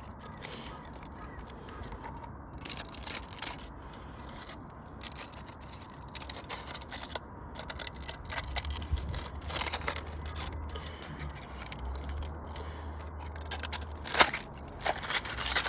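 Washing machine running with crackling, scraping and scattered clicks. A low steady hum sets in about halfway through.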